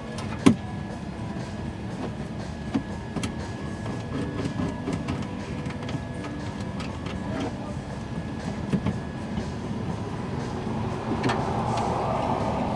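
A steady hum with scattered sharp clicks and knocks, growing a little louder near the end.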